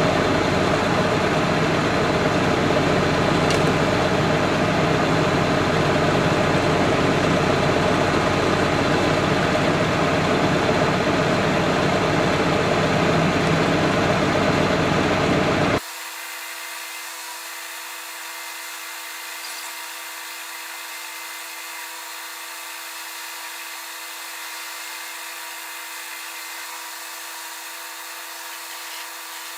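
An engine running steadily without revving; about sixteen seconds in it cuts off abruptly and a much quieter steady mechanical hum with a held tone follows.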